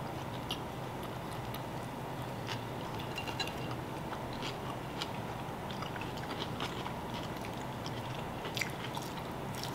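Close-up eating sounds: a person biting and chewing a forkful of French fries and stir-fried beef, with scattered small clicks over a steady low room hum.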